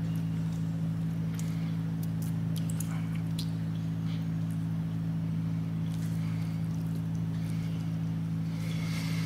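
A steady low hum that does not change, with a few faint soft clicks and rustles over it.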